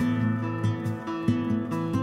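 Background music led by acoustic guitar, with notes picked out in a repeating pattern.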